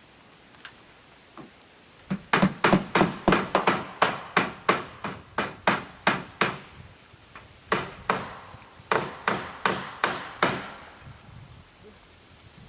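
Hammer driving nails through aluminum fascia trim: two light taps, then a run of quick sharp blows, about three a second, each with a short ringing tail. After a brief pause comes a second run, which stops about ten and a half seconds in.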